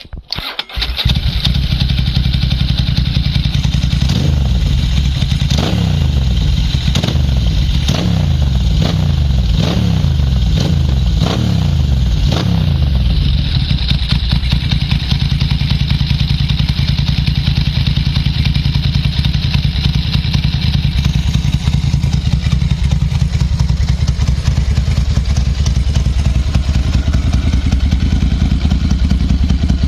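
Ducati Monster S2R 1000's air-cooled L-twin engine, breathing through a full aftermarket exhaust with the catalysts removed. It fires up about a second in, is revved in a quick string of throttle blips, then settles to a steady idle from about halfway through.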